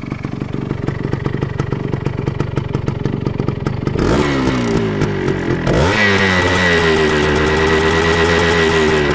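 A 1975 Yamaha DT175's single-cylinder two-stroke engine idling with a rapid, even popping, warming up after a cold start. About four seconds in the throttle is opened and the revs rise, dip briefly, and then hold at a higher, slightly wavering speed, louder at the exhaust silencer.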